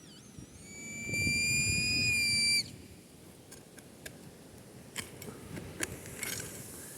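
Metal detector target tone: a high electronic tone that warbles briefly, then holds steady for about a second and a half and cuts off suddenly, signalling metal under the coil. A few faint clicks follow.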